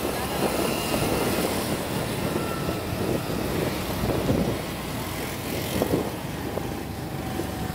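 Honda scooter riding along a wet road: a steady rush of wind on the rider's microphone with the road noise and small engine underneath.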